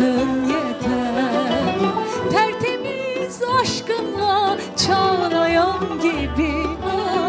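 A woman sings a Turkish art music (Türk Sanat Müziği) song through a microphone, with vibrato, accompanied by a small ensemble including violin and kanun.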